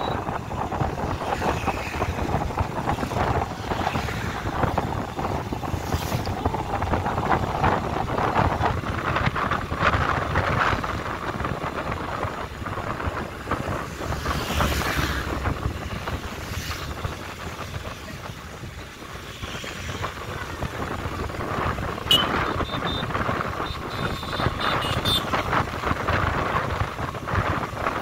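Steady noise of a vehicle moving along, with wind rushing over the microphone; it eases off a little in the middle, and there is one sharp knock about 22 seconds in.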